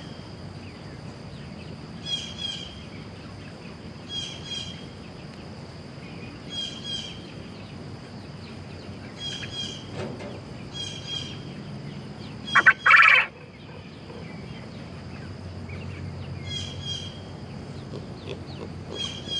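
A bird calling over and over, a short call repeated about every two seconds, with a steady high-pitched tone underneath. About two-thirds of the way through, one short loud sound stands out above the calls.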